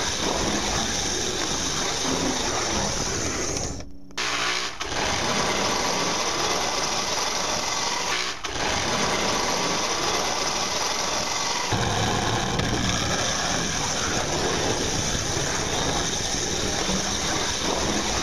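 Marx toy train running along metal track: steady whirring and rattling of its small electric motor and wheels, with a second motor spinning a weighted wheel to shake the car. The sound drops out briefly about four and eight seconds in and turns deeper from about twelve seconds.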